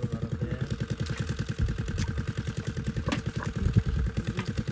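A small engine running steadily, with an even, rapid low thudding of about ten beats a second; a couple of brief sharp knocks near the middle.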